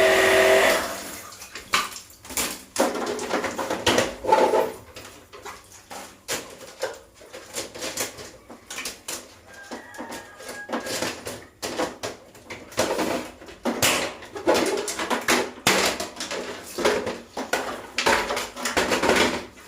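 Irregular clatter and knocking of hard objects being handled, with short scrapes in between.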